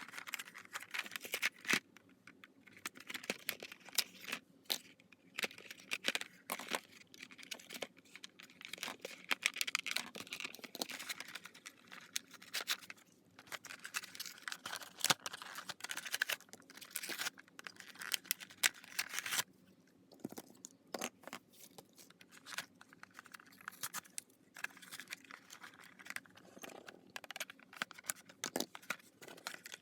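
Packaging of a craft tool set being opened and handled by hand: irregular crinkling and tearing with many small clicks and knocks.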